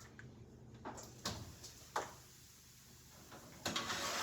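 Oven broiler being loaded: a few sharp clicks and knocks, then a louder scraping, sliding noise near the end as the pan and door are worked.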